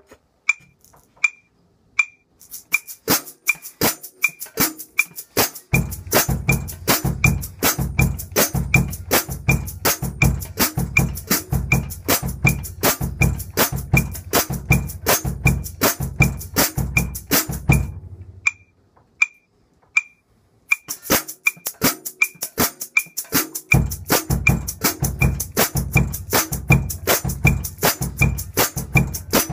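A shaker stick played in a steady, fast rhythm on a drum kit, with a bass drum and snare groove joining under it, all over a steady high click that keeps time. Partway through, the shaker and drums stop for about two seconds, leaving only the click. Then the shaker starts again and the drums come back in a few seconds later.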